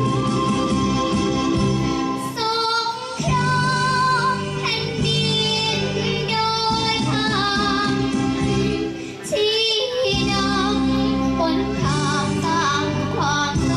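A young girl singing a Thai luk thung song into a handheld microphone over a recorded backing track; the backing plays alone at first and her voice comes in about two seconds in.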